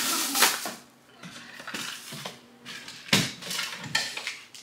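Household items knocking and clattering together as things are packed, a string of irregular knocks and rustles with the sharpest knock about three seconds in.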